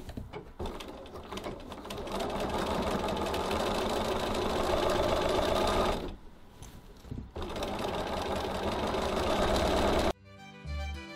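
Domestic sewing machine running steadily, stitching lines through the heavy fabric of a bag base. It stops for about a second midway, then runs again until it cuts off near the end.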